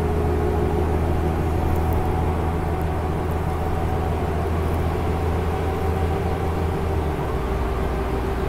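Steady drone of a car travelling at highway speed, heard from inside the cabin: a low hum with a faint steady whine over road noise.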